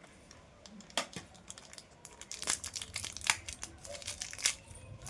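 Packaging crinkling and tearing as a new ball bearing is unwrapped by hand, in a run of irregular crackles.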